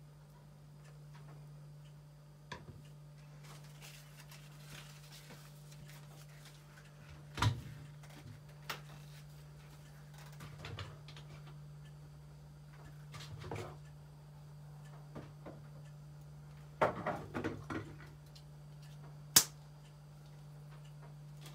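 Quiet kitchen handling noises while a pizza is topped: scattered light taps and clicks, a short cluster of knocks, and one sharp click near the end, over a steady low hum.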